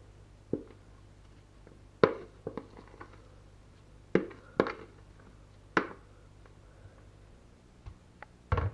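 Metal spoon clinking and scraping against a glass bowl while scooping out mashed potato mixture: about seven sharp taps spaced a second or so apart.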